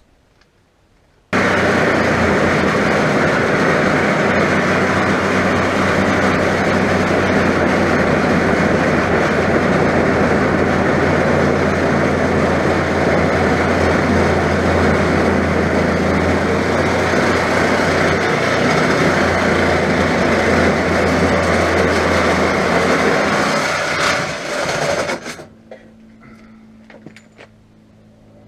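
Reciprocating saw cutting through a car's steel body shell. It starts abruptly about a second in, runs steadily for over twenty seconds, then winds down and stops near the end.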